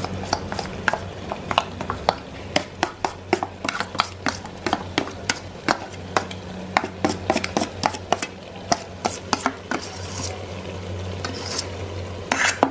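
Metal spoon repeatedly scraping and knocking against a steel bowl as thick ground masala paste is pushed out into a clay pot, many sharp irregular clicks, over a low sizzle of onions frying in coconut oil.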